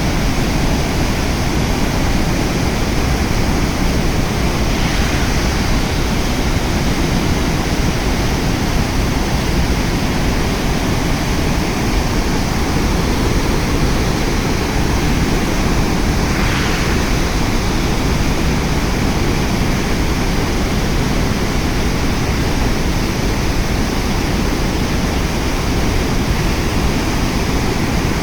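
Floodwater rushing in a heavy, steady flow.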